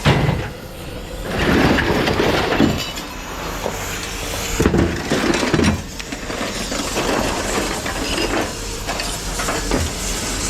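Irregular clattering and clinking of hard scrap pieces being handled and tossed, with several louder crashes spread through.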